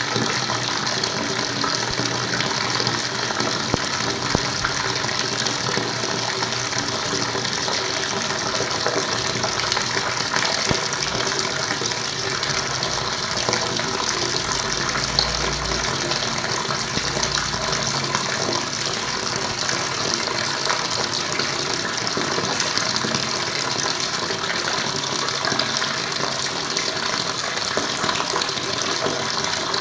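Flowing water, a steady, even rush with no breaks.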